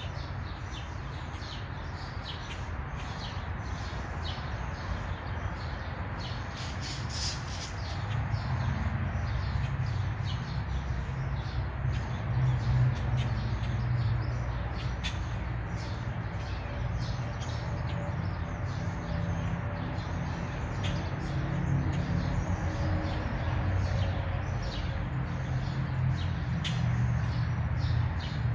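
Birds chirping and calling, many short high notes, over a steady low rumble that grows louder about eight seconds in.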